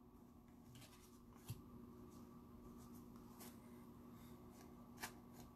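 Near silence: faint handling of trading cards, soft rubbing with a soft click about a second and a half in and another near the end, over a low steady hum.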